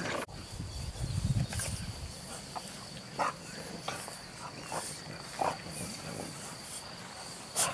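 Puppies grunting and snuffling as they play, a string of short snorts about once a second, with wind rumbling on the microphone about a second in.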